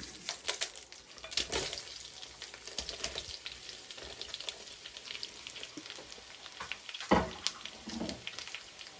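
Coconut oil sizzling in a kadai with mustard seeds crackling and popping, as chopped onions and dried red chillies are tipped into it. A single knock stands out about seven seconds in.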